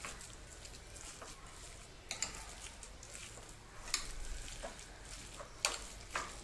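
Metal spoon stirring marinated raw chicken and egg in a glass bowl: a soft wet mixing noise with several sharp clinks of the spoon against the glass.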